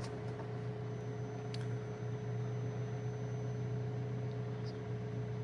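Steady low hum inside the cabin of an Alfa Romeo 4C Spider, its 1750 turbocharged four-cylinder idling while the ventilation fan runs, with a couple of faint clicks from the climate-control knobs being turned.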